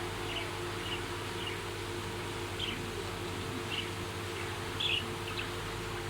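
Budgerigars giving short, scattered chirps, a louder one near the end, over a steady low hum.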